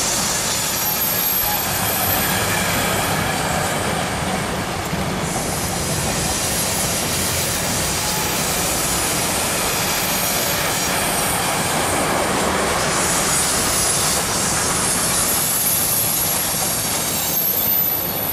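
Intermodal freight train with wagons carrying road semi-trailers rolling past, a steady loud rumble of wheels on rails. A high squeal from the wheels comes through at the start and again in the last few seconds.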